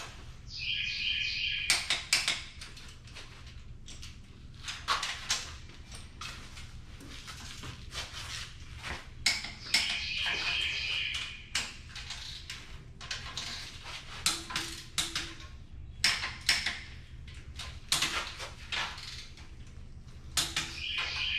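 Hand wrenches clicking and clinking on metal as cylinder head bolts are run down and torqued, with scattered sharp clicks throughout. A brief high-pitched tone sounds three times: at the start, about halfway through and near the end.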